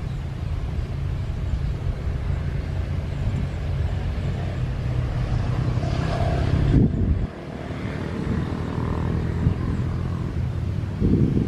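A motorcycle riding past close by, its engine running steadily until it stops abruptly about seven seconds in. Under it is the steady rumble of a distant jet airliner on the runway.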